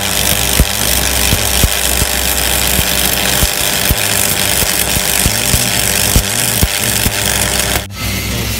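Stick (shielded metal arc) welding on steel: the arc crackles and hisses steadily with sharp irregular pops, over a low steady hum. Near the end it drops out abruptly for a moment and resumes slightly quieter.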